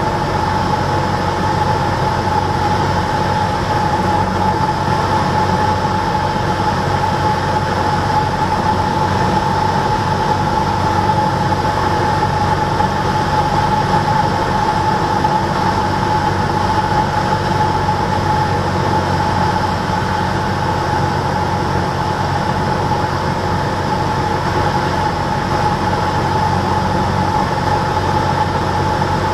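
Cessna 172's engine and propeller running steadily in flight, heard inside the cabin as a loud, even drone with a steady high whine over it.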